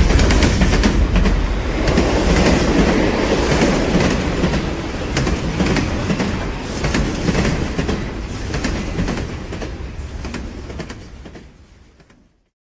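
Train running on rails: a steady rumble with rapid clicking from the wheels, fading away to silence near the end.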